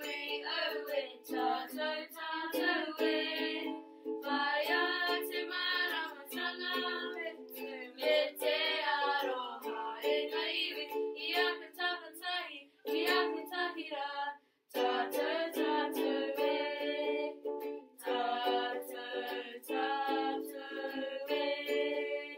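Ukulele strummed in chords with singing over it, the song stopping briefly about two-thirds of the way in.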